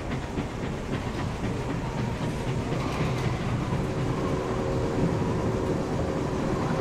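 Recorded train sound effect: a train running with a steady low rumble and rail clatter, played for the wooden replica locomotive, which makes no sound of its own.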